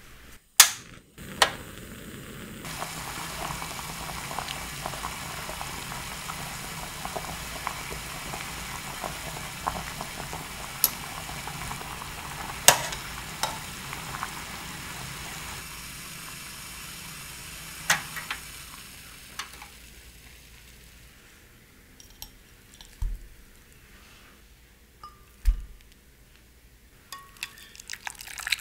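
Peaches simmering in sugar syrup in an enamel saucepan: a steady bubbling hiss, with a few sharp clinks of a mesh skimmer against the pot. After about sixteen seconds it goes much quieter, leaving a few soft thumps.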